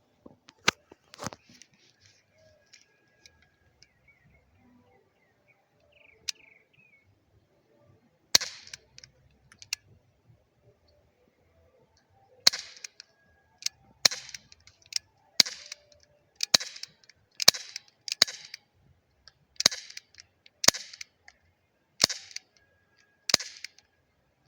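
Glock 19 replica BB pistol being fired about a dozen times, each shot a sharp crack with a short bright tail. There are two quick shots at the start and a single one a third of the way in, then a steady string at about one shot a second through the second half.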